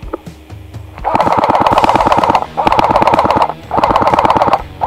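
G&G MP5 airsoft electric gun (TGM Q6) firing on full auto in long bursts, a rapid, even clatter of shots. Three bursts start about a second in and a fourth begins at the very end.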